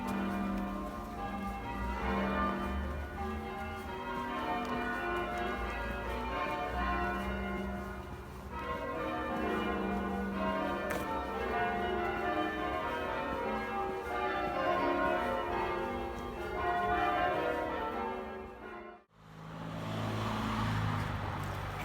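Bells ringing in a continuous peal of changing notes, cut off suddenly about nineteen seconds in and followed by a steady low hum.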